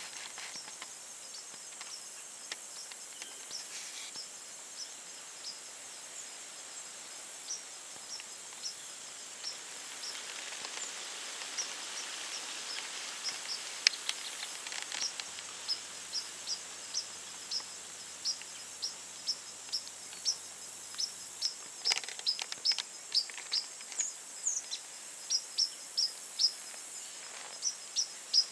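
Field ambience: a steady high insect buzz under short, high chirps repeated about once or twice a second, the chirps coming more often and louder from about halfway through. A couple of brief soft scuffs are heard.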